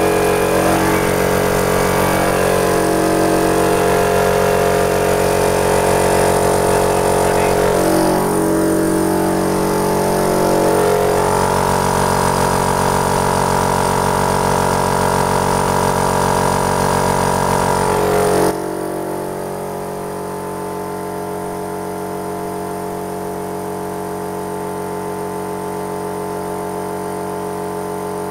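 Workzone oil-lubricated piston air compressor running flat out under test, its oil freshly topped up after it threw out blue smoke: a loud, steady machine sound. It turns abruptly quieter about two-thirds of the way through and runs on steadily.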